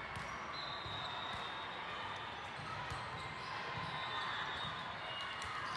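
Volleyball gym ambience: balls thumping on hands and the court floor, short high sneaker squeaks, and background crowd chatter.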